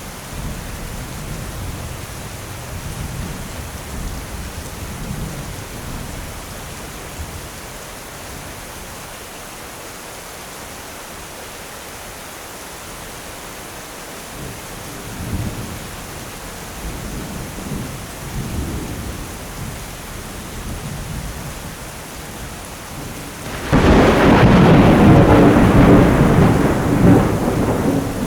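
Steady rain with thunder rumbling low in the background, then a sudden loud thunderclap about 24 seconds in that rolls on to the end.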